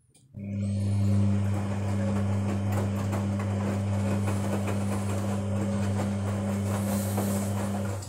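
Toshiba 7 kg front-load washing machine running with wet laundry turning in the drum. A steady low hum under a noisy rush starts abruptly about half a second in and cuts off abruptly near the end.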